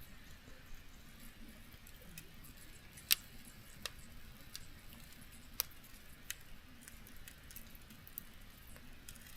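Campfire burning with scattered sharp crackles and pops from the wood, the loudest a little after three seconds in and again past five seconds.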